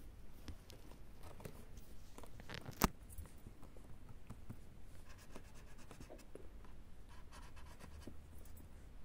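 A kitten's claws scratching and ticking on a corrugated-cardboard scratcher as it moves about, a string of light scratches, with one sharp click about three seconds in.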